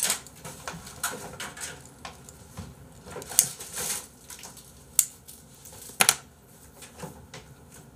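Scattered sharp clicks and light taps of small hard objects being handled, with three louder clicks in the middle.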